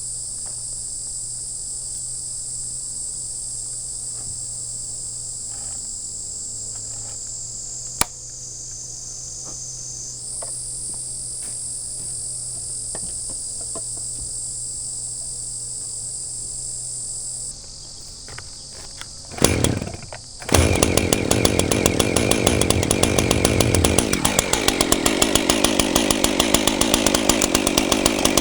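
Steady high-pitched insect chorus, then about two-thirds of the way in a chainsaw starts up with a short burst and runs loudly with a fast pulsing engine note, which drops in pitch a few seconds later.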